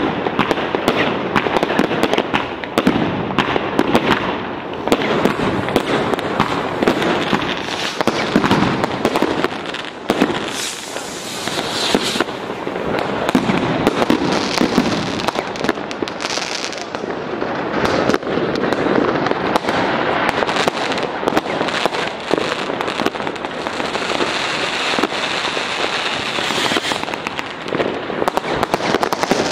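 Fireworks going off without pause: a dense stream of bangs and crackling firecrackers, with aerial shells bursting overhead.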